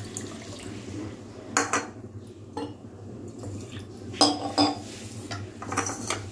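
Water poured from a bowl into a stainless steel pot in the first second, then a few sharp clinks and knocks of stainless steel vessels and a steel tumbler being handled and set down on the counter, two of them ringing briefly past the middle.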